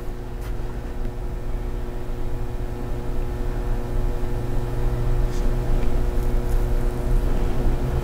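Steady low machine hum made of several steady tones, growing a little louder about halfway, with a few faint clicks.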